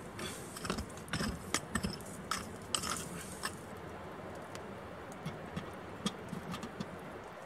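A run of sharp crackles and scrapes for the first few seconds, then a few softer clunks as an enamel kettle is set down on the stones beside the campfire embers.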